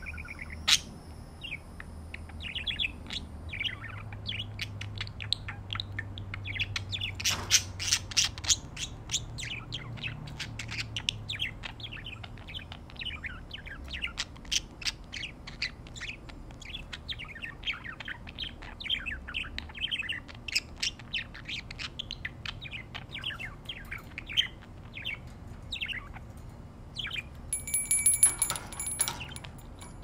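Pet budgerigars chirping and warbling in a rapid, continuous stream of short, high chirps. A brief bell-like ringing comes near the end.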